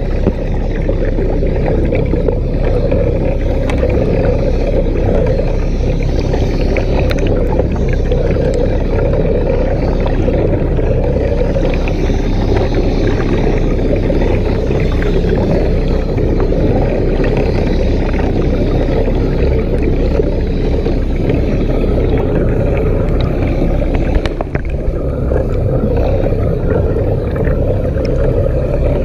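Steady underwater rumble of a mini submarine under way, with water rushing past its hull, and a single knock about three-quarters of the way through.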